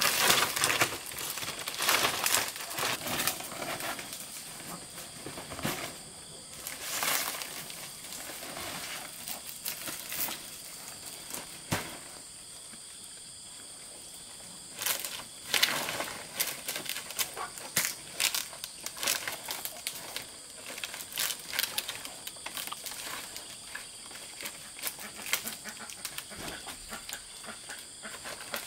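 Palm leaves rustling and swishing as they are handled and laid onto a bamboo roof frame for thatching, in irregular bursts with a quieter stretch about halfway through.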